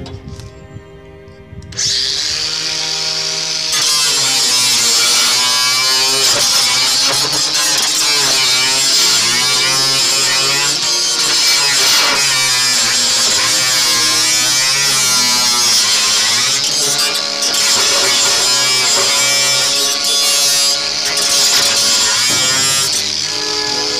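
Makita 18-volt cordless angle grinder cutting galvanised corrugated steel roofing sheet: a loud motor whine with a harsh high grinding hiss from the disc on the metal, the whine's pitch wavering as the disc bites. It grows much louder about two seconds in.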